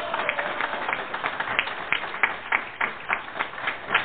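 A small group applauding, with individual hand claps standing out rather than merging into a continuous roar.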